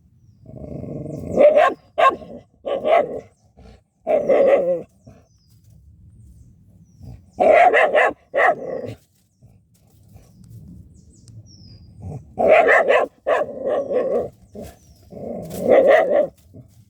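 Dog barking at a badger in several bursts of loud barks, with pauses of a few seconds between them.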